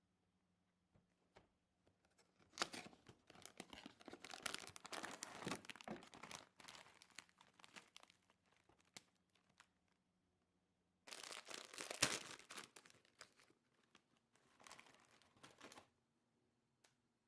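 Packaging crinkling and tearing as it is handled, in two spells of a few seconds each with a short quiet gap between.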